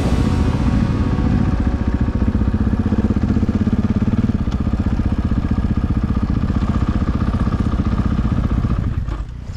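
Single-cylinder KTM 500 dirt bike engine, heard from on the bike, running at low speed with a steady pulsing note as the bike rolls up and slows. The sound dips briefly near the end.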